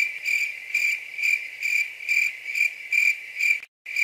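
Cricket chirping in a steady high trill that swells about twice a second, used as an awkward-silence sound effect. It drops out for a moment near the end, then carries on.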